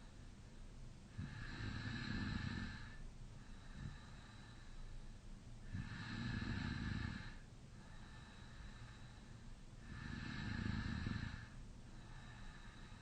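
A man snoring in deep sleep with his mouth slightly open: three loud snores about four seconds apart, with quieter breathing between them.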